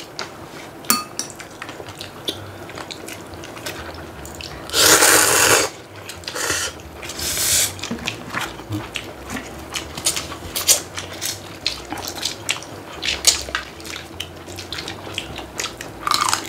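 Eating at a table: noodles slurped, with the loudest slurp about five seconds in and two shorter ones after it. Chopsticks and utensils click against bowls and plastic food containers throughout.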